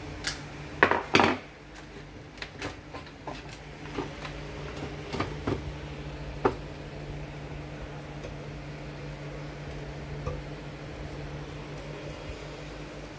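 Clicks and knocks of a circuit board, wiring and plastic chassis parts being handled and fitted inside a Sony LBT-ZUX10D mini hi-fi unit. The loudest cluster comes about a second in, with scattered lighter clicks until about halfway, over a steady low hum.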